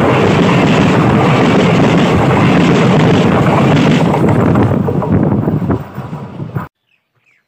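Train passing directly over a camera on the track ballast: a loud, steady noise of the cars and wheels going overhead with wind on the microphone. It eases off as the last car clears, then cuts off abruptly near the end into near silence.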